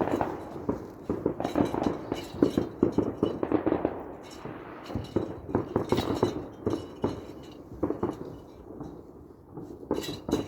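Fireworks crackling and popping in quick, dense runs of sharp cracks, easing off in between.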